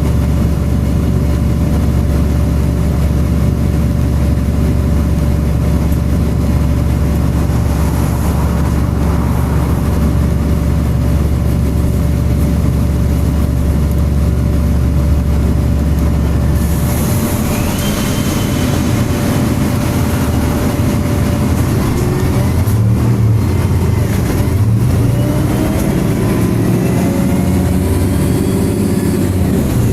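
MAN-chassis Alexander Enviro 300 single-deck bus with its engine and cooling fan running in a steady low drone. About halfway through the note changes and the engine pulls away, its pitch rising and dropping as it goes up through the gears.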